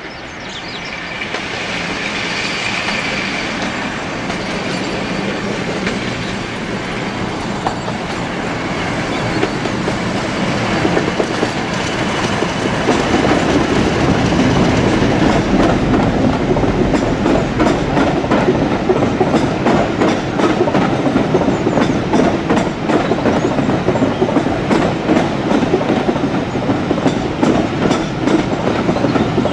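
A diesel locomotive approaches and passes at speed with its engine running hard and a high whine over it. Then its train of coaches rolls by, the rhythmic clickety-clack of wheels over the rail joints growing stronger through the second half.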